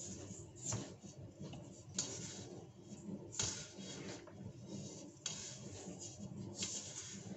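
Hands pressing and rubbing cake dough in a stainless steel stand-mixer bowl with the mixer stopped, checking its consistency, with a few light knocks against the bowl.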